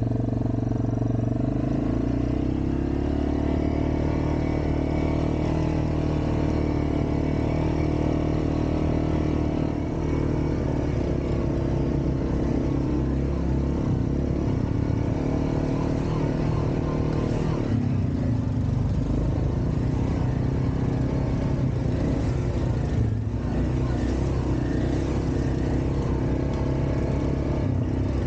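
ATV engine running steadily as the quad is ridden, its pitch shifting a little from moment to moment.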